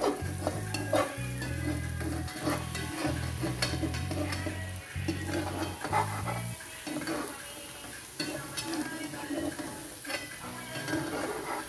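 Zucchini frittata sizzling as it fries in oil in a non-stick pan, with a spatula scraping and clicking against the pan as it is worked under the frittata to loosen it for turning. A low hum runs under it and stops about six and a half seconds in.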